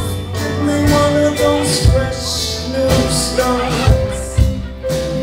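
Live rock band playing: electric guitars, bass, drums and keyboard together, with drum hits cutting through the sustained notes.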